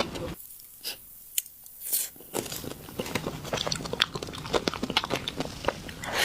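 Close-miked eating of desserts: a few soft mouth clicks, then from about two seconds in steady chewing with many small crunchy crackles and bites.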